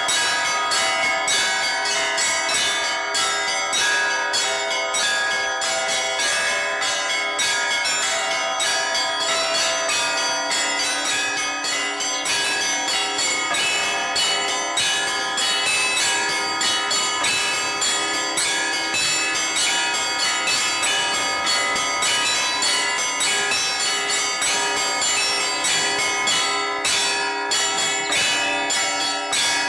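Orthodox church bells rung together in a continuous peal: a fast, steady run of strikes, several a second, over the lingering tones of bells at many different pitches.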